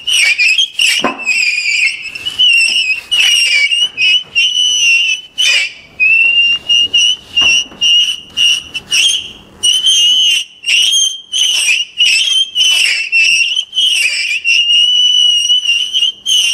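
A loud, high-pitched electronic whistling tone that wavers and warbles in pitch and is chopped into short, uneven stretches by brief gaps, with thin overtones above it, typical of experimental noise-art electronics.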